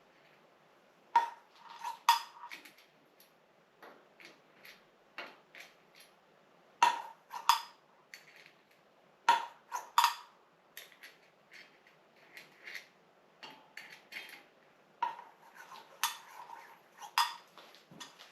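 Small steel bicycle parts and tools clinking and tapping against metal at an irregular pace, with a handful of louder, briefly ringing clinks, as the front end of a vintage Raleigh bicycle is stripped.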